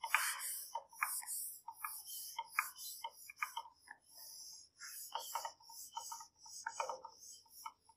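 A whiteboard duster being wiped across a whiteboard, scrubbing in many short, irregular strokes that erase marker writing.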